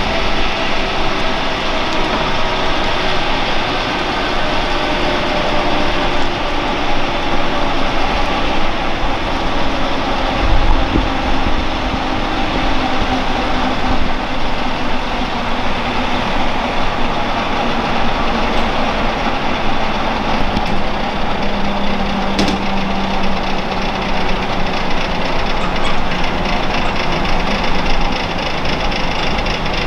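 Airbus Helicopters H135 (EC135) air ambulance on the ground with its main rotor turning, its twin turboshaft engines running at idle: a steady turbine whine over the rush of the rotor and the Fenestron tail fan.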